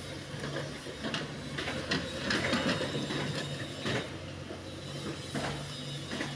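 JCB backhoe loader digging: the diesel engine runs steadily under the clanks and scrapes of the backhoe bucket working through soil and rubble, loudest about two to three seconds in.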